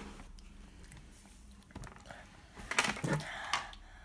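Quiet room with a child's soft mouth noises, chewing and sipping through a plastic cup's straw, and a few faint clicks; a short patch of louder sipping or chewing noise comes about three seconds in.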